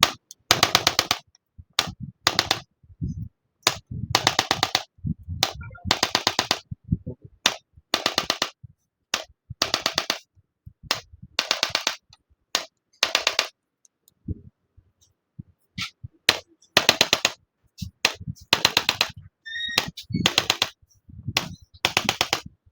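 Rapid percussive tapping on a patient's body during manual therapy for back pain, in many short bursts of quick even strikes, each about half a second to a second long and repeated every second or two, with a pause of a few seconds past the middle.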